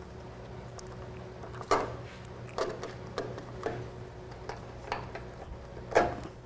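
Motorcycle battery box being fitted into the frame by hand: a series of knocks and clunks, the loudest about two seconds in and near the end.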